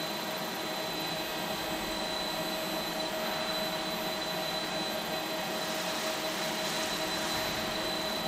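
Robotic MIG welding with a Fanuc Arc Mate 100i torch and a Lincoln MIG power source: a steady, even arc hiss with a constant high hum underneath.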